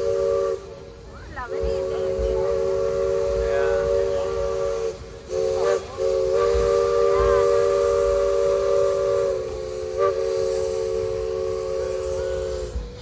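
Steam locomotive's chime whistle sounding a chord in long, long, short, long blasts, the standard grade-crossing signal; the engine is the Shay locomotive Dixiana of the Roaring Camp narrow-gauge railroad.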